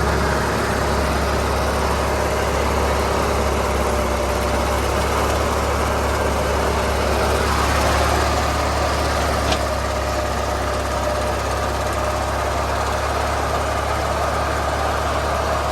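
John Deere 400 garden tractor engine running steadily at idle, with a steady whine above the engine note, while the front end loader is being hooked up. A single sharp click about nine and a half seconds in.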